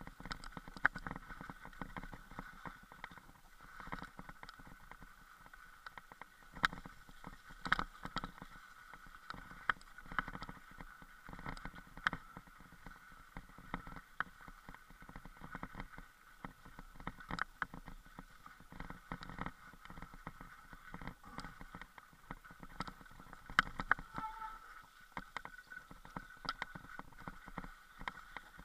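Irregular knocks, bumps and rattles from a moving body- or bike-mounted action camera travelling along a snowy forest trail, over a faint steady hiss.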